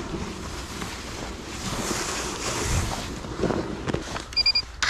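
Wind rushing over the microphone, swelling about halfway through. Near the end there is a short electronic beep.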